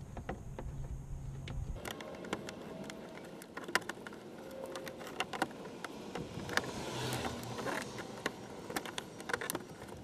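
Screwdriver prying plastic clips out of a car's plastic inner fender liner: a run of small clicks, taps and scrapes. A low hum underneath stops about two seconds in.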